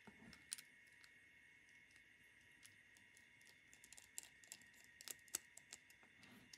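Faint, scattered small clicks and ticks of a precision screwdriver driving a tiny screw back into an opened iPhone 4, coming more often about four to five seconds in.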